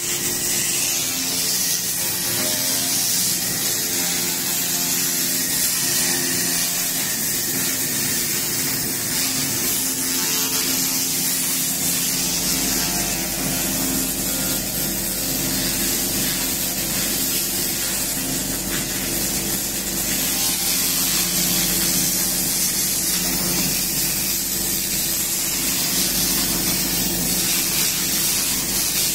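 1500 W handheld fiber laser cleaning head ablating rust and oxide off a steel panel: a steady, even sizzling hiss, over several steady low tones from the machine, with a deeper hum joining about twelve seconds in.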